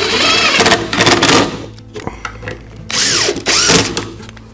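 DeWalt cordless drill driving screws into a wooden lid, running in two bursts: one for the first second and a half, then another about three seconds in lasting about a second.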